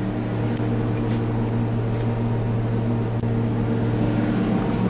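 The towboat's diesel engines running steadily, a low, even drone with a pitched hum, heard inside the wheelhouse.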